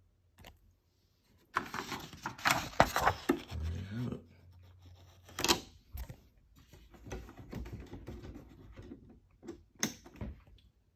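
Printed continuous-feed paper being handled: irregular rustling and crinkling with sharp clicks, loudest in the first few seconds after a quiet start, then scattered knocks and softer rustling.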